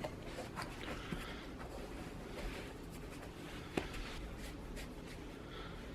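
Faint rustling and light clicks, with one sharper click about four seconds in.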